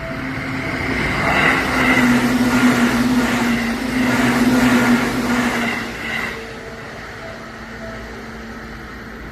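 Seibu Shinjuku Line train passing over a level crossing. It builds for a second or so, stays loud for about five seconds, then dies away. Under it the crossing bell rings in short, evenly spaced dings, lower in pitch after the train has gone.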